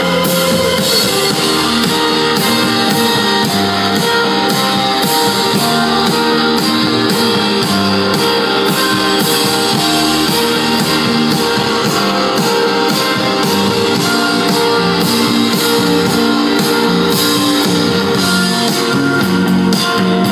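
Live band playing with electric guitars to the fore over drums with a steady beat, mostly instrumental.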